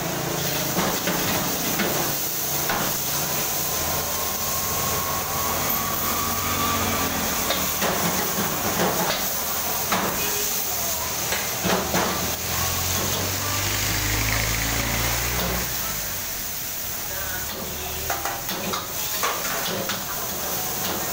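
Stir-frying in a wok over a high gas burner: a steady hiss of burner and sizzling food, with a metal spatula scraping and clanging against the wok many times.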